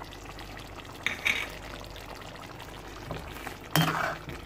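Chicken pieces simmering in tomato liquid in a metal cooking pot, a steady soft bubbling hiss. Near the end a metal spoon clatters sharply against the pot as stirring begins.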